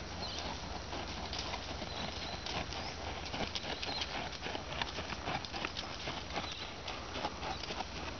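Hooves of a bay dressage horse walking on a gravel-and-sand arena surface: a run of irregular crunching hoofbeats, over a steady low hum.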